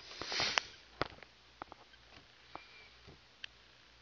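A short sniff, then several light, scattered taps and clicks of a finger working a smartphone's touchscreen in its case.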